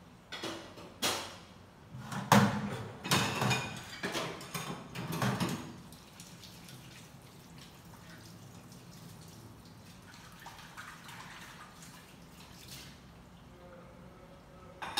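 Washing up at a kitchen sink: dishes and pans knock and clatter several times in the first few seconds, then quieter washing with dripping water, and another clatter at the very end.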